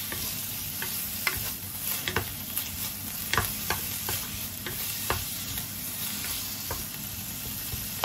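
Thinly sliced pork, put into the pan frozen, sizzling in hot oil in a nonstick frying pan while a wooden spatula stirs it and pries the frozen clumps apart. Over the steady sizzle come irregular sharp clicks, about one or two a second, as the spatula knocks against the pan.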